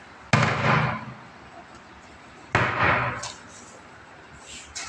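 Plywood cabinet doors knocking shut twice, about two seconds apart, each with a short ringing tail, then a few light clicks near the end.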